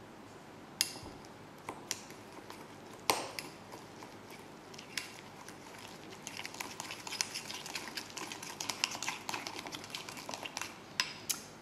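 A metal spoon mixing a thick mustard-and-spice paste in a ceramic bowl, heard faintly. There are a few separate clinks at first, then quicker soft scraping and ticking against the bowl from about halfway through.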